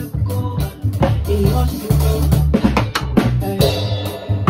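Drum kit played with sticks, with steady strokes on drums and cymbals, over a recorded song with a sustained bass line and melody.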